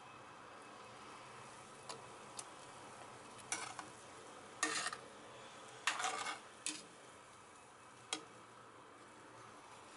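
Chicken-bone stock boiling in a stainless steel pot, with a metal ladle skimming the scum off the top and scraping and clinking against the pot in several short bursts, the loudest a little past the middle.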